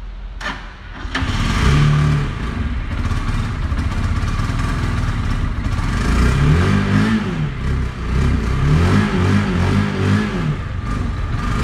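Sport motorcycle engine starting about a second in, after a couple of starter clicks, then idling and being blipped, with the revs rising and falling several times from about six seconds in, to show off the exhaust sound.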